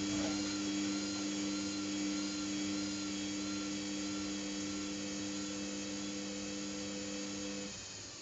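Samsung WF70F5E0N4W washing machine running with a steady whine between the end of its main wash and the rinse. The whine cuts out near the end, leaving a quieter hiss.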